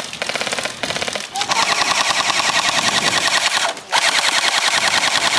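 FAMAS-style airsoft electric rifle firing on full auto: a few short bursts, then two long bursts of rapid, evenly spaced shots with a brief pause between them just before four seconds in.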